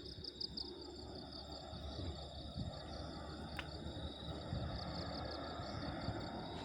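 Insects chirping steadily in a fast, high, pulsing rhythm, over a low irregular rumble.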